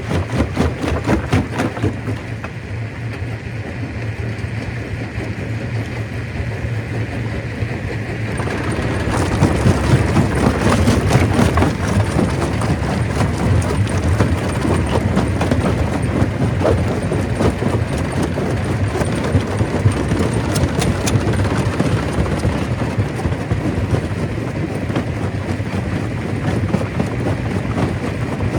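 Stone crusher running, a steady low machine hum under a dense clatter of rock being broken; the clatter grows louder about nine seconds in.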